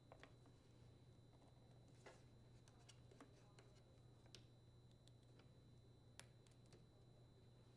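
Near silence with a faint steady hum and a few scattered faint clicks of small parts being handled: the bullet connectors of a leaf blower's ignition module wire harness being pushed together.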